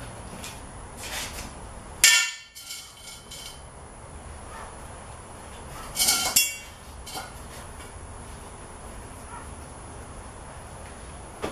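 Lengths of steel square tubing handled and set down on a concrete floor: a sharp metal clang about two seconds in that rings briefly, another clatter of metal around six seconds, and a few lighter knocks between.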